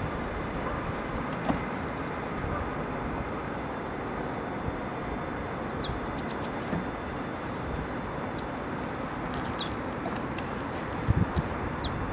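Volvo C70 T5's retractable hardtop folding away into the boot and the boot lid closing, over a steady background noise. From about a third of the way in, small birds chirp over it again and again in short, high, falling notes. A couple of soft thumps come near the end.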